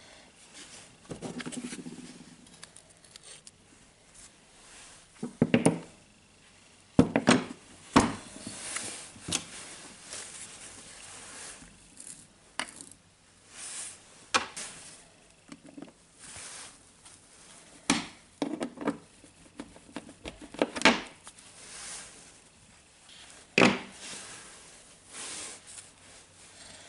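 Small metal parts from a DeWalt 18V brushless drill's planetary gearbox (gears, ring gear and loose pins) clicking and clinking as they are handled and set down. The sound is an irregular string of a dozen or so separate sharp clicks and knocks with quiet rustling between them.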